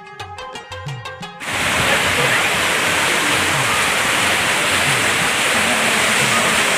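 Background music with a steady beat, then about a second and a half in a sudden change to the loud, steady rush of a waterfall pouring down, with the music's bass still faintly under it.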